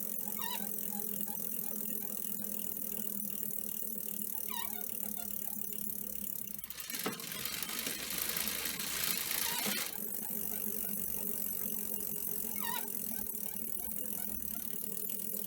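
A short squeak that falls in pitch, heard four times at uneven gaps of a few seconds over a steady hum. This is the intermittent squeak-creak under check. A louder stretch of hiss comes in the middle.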